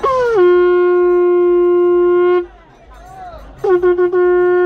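Conch shell (shankha) blown twice. Each is a long, loud, steady horn-like blast that opens with a quick downward slide in pitch. The first lasts about two and a half seconds, and the second begins shortly after the first stops.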